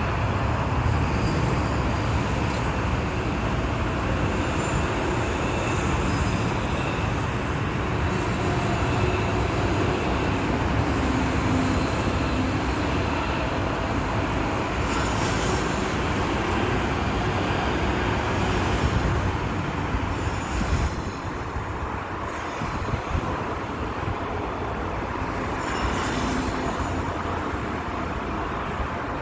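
Deutsche Bahn ICE high-speed trains running along the tracks, with a steady rumble of wheels on rail and thin, high wheel squeals now and then. The noise eases a little about two-thirds of the way through.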